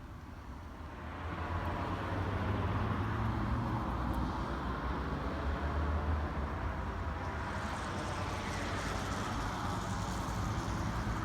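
Steady low rumble with a hiss of a motor vehicle going by, building up about a second in and falling away at the end.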